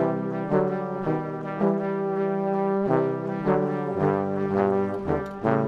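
Background music: sustained instrumental chords that change every second or so.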